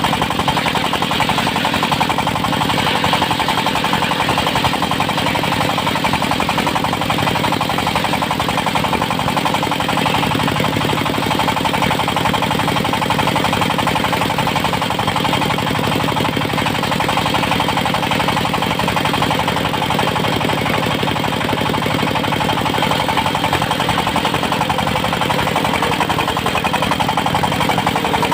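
Engine of a mobile circular-saw sawmill running steadily under power, with a fast, even chugging beat and no let-up.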